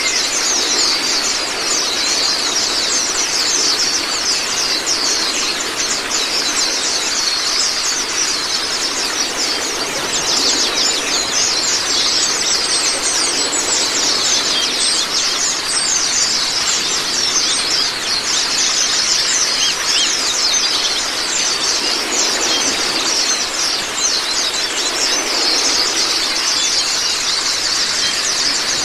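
A group of white-eyes (Zosterops) twittering continuously in dense, rapid, high-pitched overlapping calls, over the steady rush of running water.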